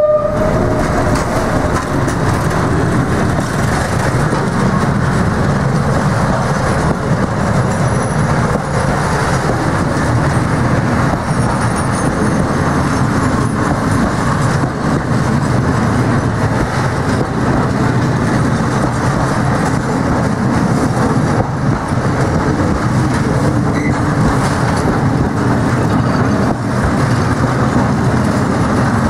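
Freight train of open-top wagons rolling past steadily: a continuous rumble and clatter of steel wheels on the rails.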